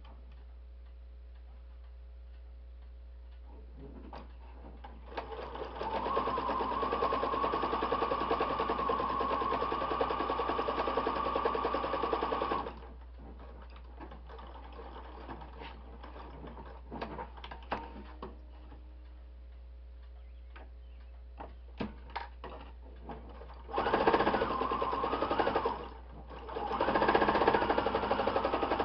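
Electric sewing machine stitching a seam through two layers of fabric: it runs steadily for about seven seconds and stops, then comes scattered clicks and knocks as the fabric is handled, and near the end two more short runs with a brief stop between them.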